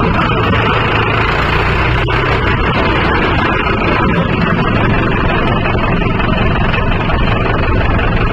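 Mahindra 575 DI 45 hp diesel tractor running steadily under load while driving a 36-blade Gomathi rotavator through the soil.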